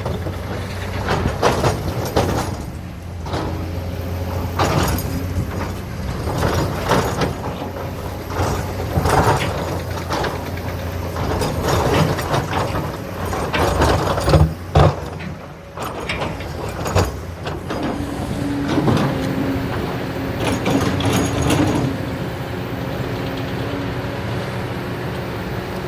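Kobelco SK200 excavator's diesel engine running under load, with repeated knocks and clatter as sand and rock are dumped into a dump truck's bed. The loudest knocks come a little past the middle, and the last third is steadier, with a held engine note.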